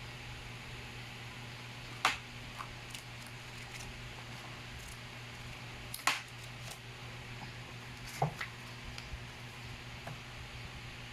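Three sharp clicks and a scatter of faint ticks from handling the watch and its packaging, over a steady low hum and hiss.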